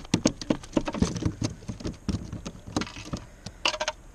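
A freshly caught fish flapping against the plastic deck of a kayak while it is unhooked: a quick, irregular run of slaps and knocks that stops shortly before the end.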